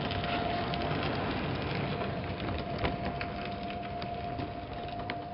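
O gauge three-rail model train rolling past on metal track: the locomotive's MTH RailKing mechanism and then scratch-built sheet-metal coaches on MTH trucks, a steady rattling rumble with quick clicks of wheels over the rails. It is loudest about the first second, as the locomotive goes by.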